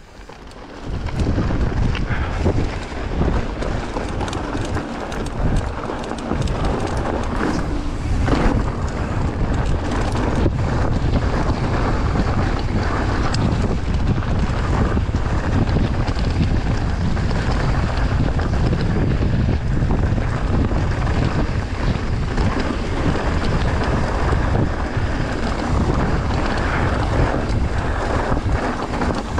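Wind buffeting the camera's microphone as a mountain bike rolls fast down a rocky dirt trail, with the tyres crunching over gravel and the bike rattling. The rumble rises about a second in as the ride gets going, then holds steady.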